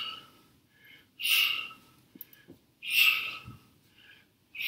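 A man's sharp, forceful breaths out through the mouth, one with each kick of a taekwondo front kick, side kick and turning kick, coming about every one and a half seconds.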